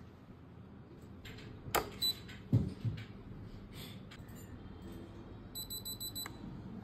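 A few knocks and taps about two seconds in, then near the end a quick run of short, high-pitched beeps from the ceiling fan's controller as the remote's Wi-Fi button is long-pressed: the signal that the fan has entered Wi-Fi pairing mode for the Tuya app.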